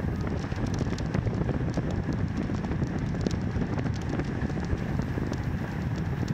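Wind and road noise buffeting the microphone of a camera moving along on a bicycle: a steady low rumble with rapid small crackling clicks all through.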